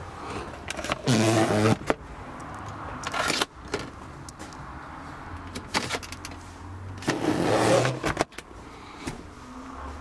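Handling noises of plastic car-interior trim: clicks and knocks as an under-seat storage tray is pulled open. There are also two louder, drawn-out sounds, about a second in and again about seven seconds in.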